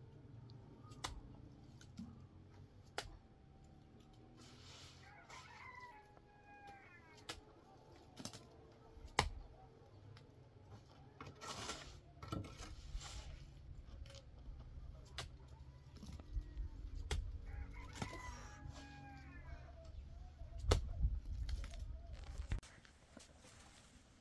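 A rooster crows twice, well apart, each crow lasting about two seconds. Scattered sharp knocks and taps and a low rumble run beneath it.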